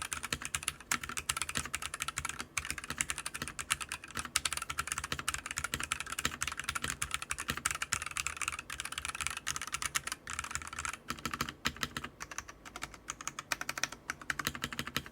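Typing on a Fantech Atom Pro79 mechanical keyboard fitted with Huano Red linear switches and XDA-profile keycaps, in a gasket-mounted case with no foam inside. A fast, continuous run of keystrokes with a few short pauses.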